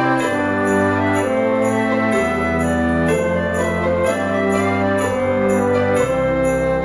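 Christmas-style background music with jingle bells shaking in a steady rhythm over sustained chords.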